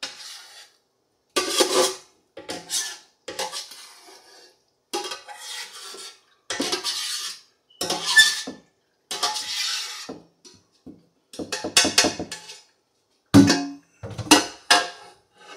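A spoon scraping and knocking fruit mash out of a pot into a fermenting bucket: about a dozen short scrapes, a second or so apart, with a little ringing.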